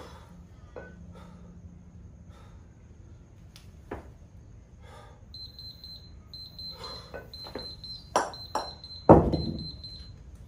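An alarm beeping in quick high-pitched pulses from about five seconds in, signalling the end of the timed kettlebell set. Near the end a pair of 16 kg kettlebells is set down on concrete: two sharp knocks, then a loud heavy thud that rings on briefly.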